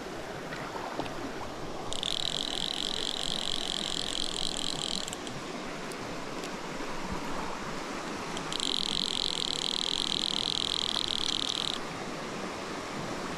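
Stream water running steadily, with an animal's high, pulsing trill sounding twice, each about three seconds long.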